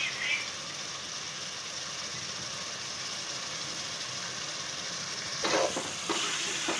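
Sliced onions frying in oil in an aluminium pot, a steady sizzling hiss as they cook toward brown. Near the end a steel ladle stirs them, scraping and knocking against the pot a few times.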